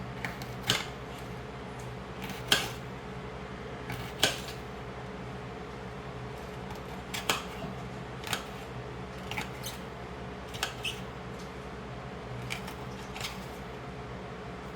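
Kitchen knife cutting yellow bell peppers, the blade knocking on the cutting board in about ten sharp, irregular strikes, the loudest a few seconds in.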